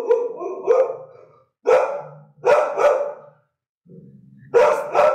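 A dog barking repeatedly in short, sharp barks: a quick run of barks at the start, then single and paired barks about a second apart.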